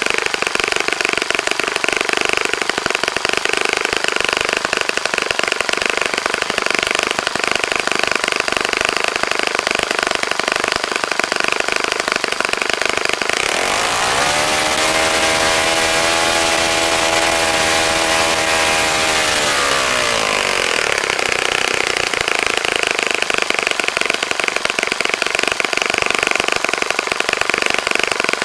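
Freshly rebuilt Saito FA-65 single-cylinder four-stroke glow engine running with a 12x6 propeller. About halfway through it revs up and holds high speed for about seven seconds, then is throttled back down.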